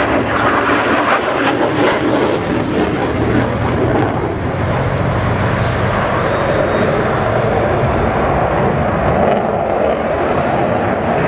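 Aircraft engine noise from a plane flying a display, loud and steady: a deep rumble with a hiss over it.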